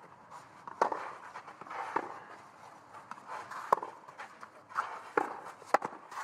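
Tennis rally on a clay court: sharp racket-on-ball strikes and ball bounces, about half a dozen over six seconds, the loudest a little past the middle.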